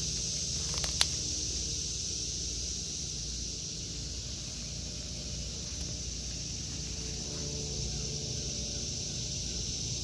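Steady high-pitched drone of a cicada chorus over a low rumble, with one sharp click about a second in.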